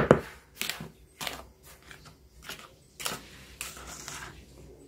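Wooden spoon stirring dry tapioca starch and sugar in a bowl: short scraping strokes about twice a second, beginning with a sharp knock.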